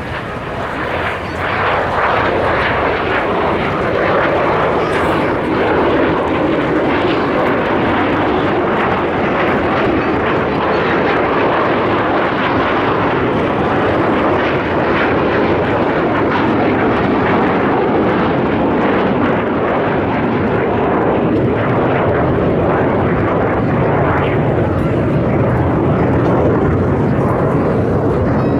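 Jet engines of Blue Impulse Kawasaki T-4 trainers running: a loud, steady rush of jet noise that swells about a second and a half in and then holds.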